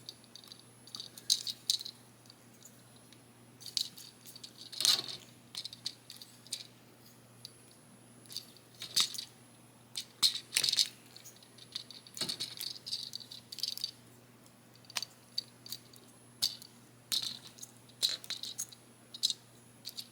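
Plastic action figure's joints clicking and its parts rattling as its arms are turned and posed by hand: irregular light clicks in quick clusters.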